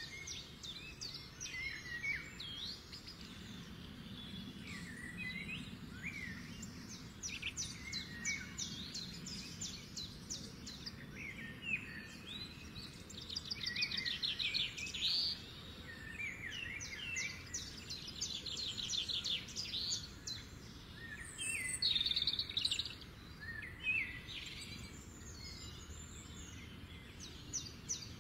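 Birds chirping and singing, with many short calls, gliding notes and rapid trills throughout, over a faint low background hum.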